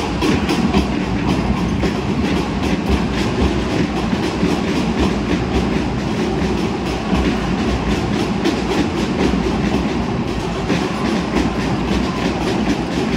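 Arena ambience at a basketball game: a steady wash of crowd noise with quick repeated knocks, several a second, all the way through.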